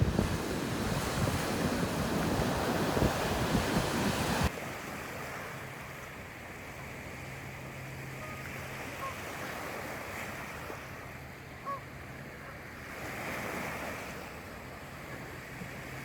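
Waves and surf with wind buffeting the microphone; about four and a half seconds in it cuts suddenly to a quieter, steadier wash of water with a few faint chirps.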